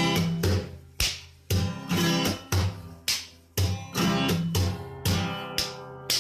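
Music: a guitar playing plucked notes, about two a second, each one ringing out and fading.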